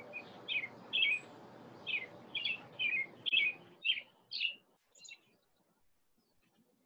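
A songbird singing a quick run of short chirps, about two or three a second, over a faint hiss; the song thins out and stops about five seconds in.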